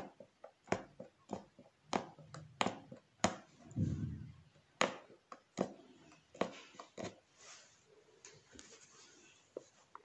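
Punch needle stabbing through doubled fabric stretched tight in a wooden embroidery hoop: a series of sharp pops, irregular at about one to two a second, growing fainter and sparser in the last couple of seconds. A brief low muffled thump about four seconds in.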